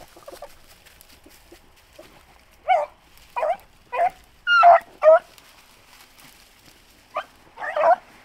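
Beagles giving voice in short, yelping bays while trailing a rabbit's scent. About half a dozen calls come quickly a few seconds in, then a pause, then two or three more near the end.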